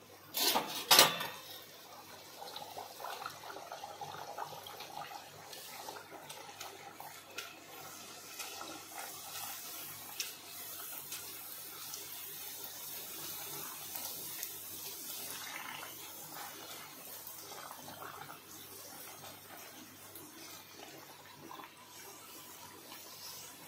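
A bhatura deep-frying in hot oil in a steel kadai: a loud sizzle about half a second in as the dough goes into the oil, then a steady sizzling and bubbling of the oil. Occasional light taps come from a perforated steel slotted spoon pressing the puffing bread down.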